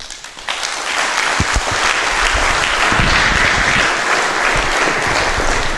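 Audience applause: steady clapping from a roomful of people that starts right away and eases off a little near the end.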